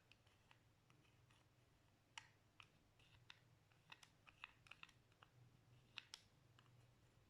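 Faint, irregular sticky clicks and small pops of slime being pressed and worked by hand, loosely clustered through the middle with a couple of sharper pops.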